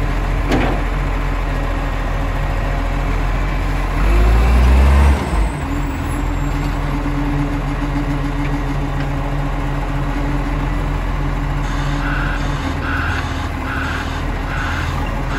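Side-loader garbage truck's diesel engine idling steadily, rising in a brief rev about four seconds in and dropping back. Near the end a run of short evenly spaced beeps, about one and a half a second, sounds over the engine.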